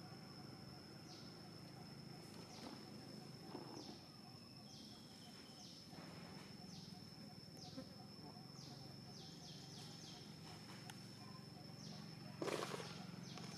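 Faint forest ambience: a steady high-pitched insect tone with short falling bird chirps repeated over it, singly and in quick runs, and one short louder noise near the end.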